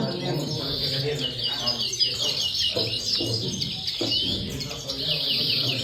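European goldfinches singing: a continuous, fast twitter of rapid chirps and short trills.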